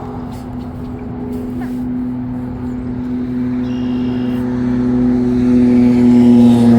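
An engine drone, a steady hum that grows louder as it approaches and peaks near the end, where its pitch starts to drop slightly.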